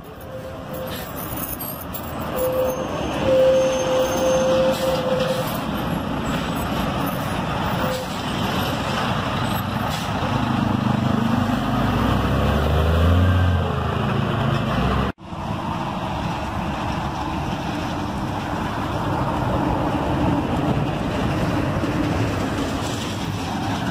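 Intercity coach's diesel engine running as the bus pulls away, revving up with a rising pitch about ten seconds in; a thin steady whine sounds briefly a few seconds in. After an abrupt cut about halfway, another coach's engine runs steadily as it manoeuvres.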